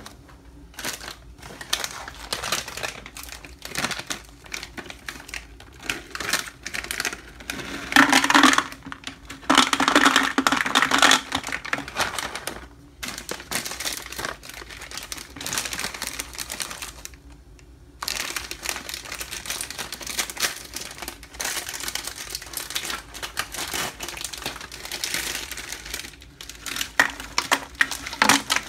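Nuts and dried fruit poured from plastic packets into a clear plastic jar: rapid clattering of pieces falling into the jar, with crinkling of the packets. The loudest pours come about eight and ten seconds in.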